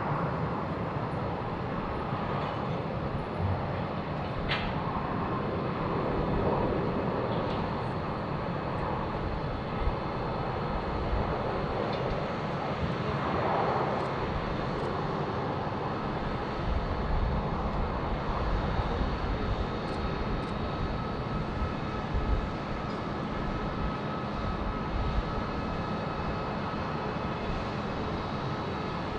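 Airbus A320-200 jet engines running steadily at low power as the airliner rolls out and taxis off the runway after landing, with a faint whine over a low rumble.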